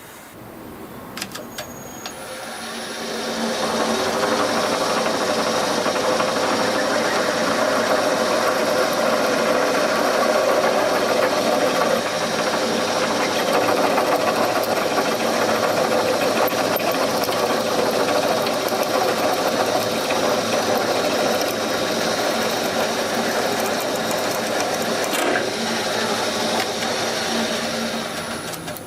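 Seat-and-guide machine spindle driving the next size of drill bit into a broken intake manifold bolt in a cast-iron Ford 302 cylinder head: a steady motor whir with rough cutting chatter. It builds up over the first few seconds and winds down near the end.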